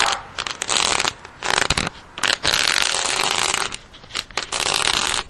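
Steel garden-hose nozzle dragged across concrete pavement: a gritty metal scraping in several long strokes with short pauses between them.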